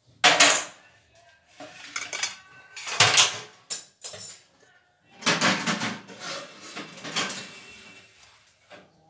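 Metal kitchenware clattering: a spoon, a small bowl and a metal tray knocked together and set down on a stone counter, in several separate bouts of clatter.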